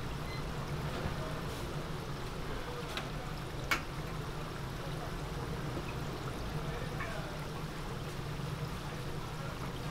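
Deep fryer of chapssal kkwabaegi, twisted glutinous-rice doughnuts, sizzling and bubbling steadily in hot oil over a low hum. A single sharp click comes a little under four seconds in.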